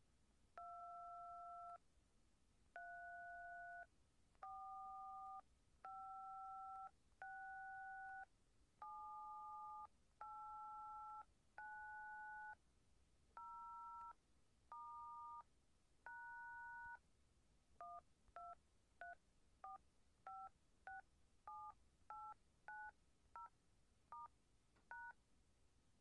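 Touch-tone (DTMF) telephone keypad tones dialing 1-2-3-4-5-6-7-8-9-0-#, each key a two-pitch beep. About eleven long beeps of roughly a second each come first. About two-thirds of the way in, the sequence repeats as a rapid run of short beeps.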